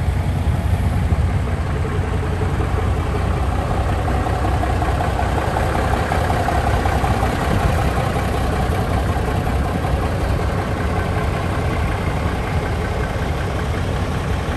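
1980 Peterbilt tow truck's Cummins diesel engine idling steadily.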